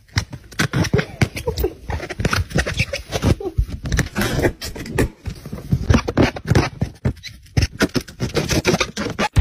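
A dog mouthing and snapping at a rubber balloon pressed against its face: a rapid, irregular run of rubbing and scraping on the rubber, mixed with the dog's snarls.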